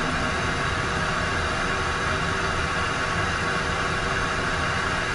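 Citation jet's right turbofan engine idling just after its start, a steady rush of noise with a faint even whine, heard from inside the cockpit.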